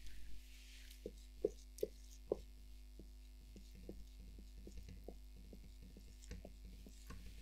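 Faint taps and ticks of writing on a board, over a steady low electrical hum. There are four sharper taps in the first two and a half seconds, then a run of lighter, irregular ticks.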